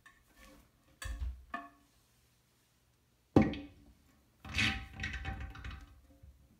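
Porcelain toilet tank handled and set down onto the bowl: two light knocks, a sharp clunk about three and a half seconds in, then a stretch of ringing scraping and clattering of porcelain on porcelain as the tank settles.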